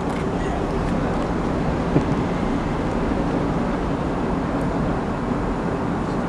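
Steady rumble of city street traffic, with a single short knock about two seconds in.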